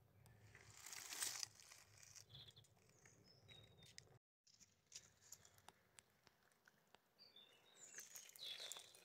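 Near silence: faint rustling of dry leaves, with a few brief, faint bird chirps and a moment of dead silence about four seconds in.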